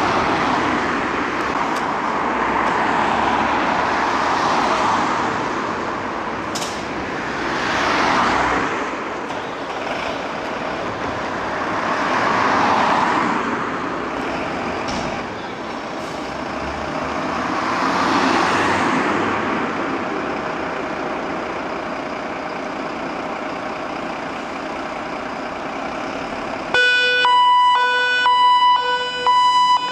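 Road traffic passing in swells that come and go every few seconds. Near the end, a Mercedes Atego fire rescue unit's siren starts: a steady pitched tone, louder than the traffic, that breaks off briefly several times as the appliance turns out.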